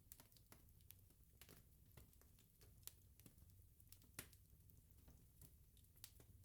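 Wood bonfire crackling faintly: irregular sharp pops and snaps, the loudest about three and four seconds in, over a low steady rumble.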